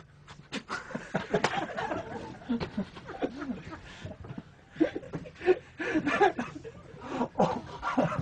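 People laughing and chuckling in short, irregular bursts, breaking up a take of the scene.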